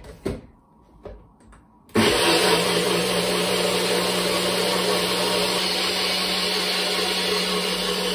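NutriBullet personal blender: a few knocks as the cup is pushed onto the base, then about two seconds in the motor starts and runs steadily, chopping torn red cabbage leaves in water.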